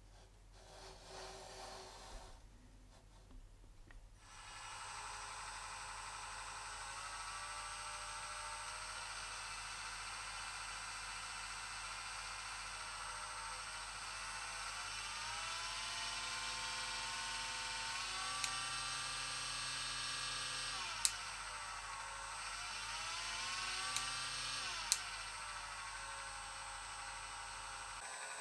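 Handheld rotary tool spinning a 3-speed RC car centrifugal clutch: a steady high motor whine starts about four seconds in. Its pitch rises and falls twice as the tool is sped up and slowed, with a few sharp clicks along the way.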